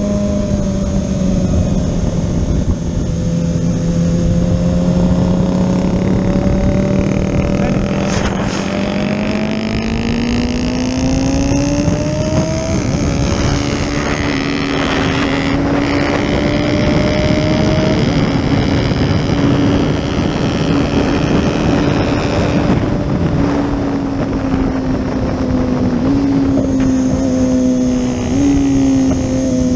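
Kawasaki Ninja ZX-6R's inline-four engine heard onboard, running at steady revs under a constant rush of wind noise. Its pitch rises slowly over the first dozen seconds, then holds, with two small jumps in pitch near the end.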